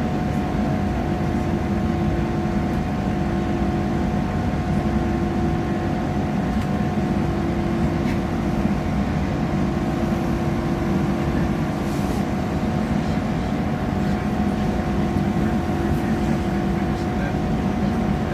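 Steady running noise heard from inside a moving passenger train: a dense low rumble with a constant hum running through it, and a few faint clicks.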